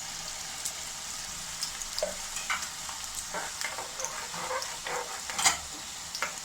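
Peanuts, urad dal and chana dal frying in hot oil in a kadai, with a steady sizzle and scattered crackles and clicks as they are stirred; the sharpest crackle comes about five and a half seconds in.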